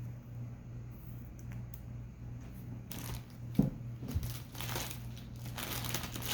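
Trading cards and card pack wrappers being handled: scattered clicks and rustling from about three seconds in, thickening into crinkling near the end, over a steady low hum.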